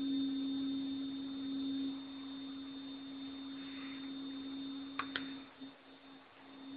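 A steady low hum-like tone, louder for the first two seconds and briefly dipping near the end, with two quick clicks about five seconds in.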